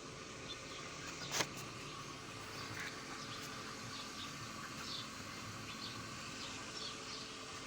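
Scattered short bird chirps over a steady background hiss, with one sharp click about a second and a half in.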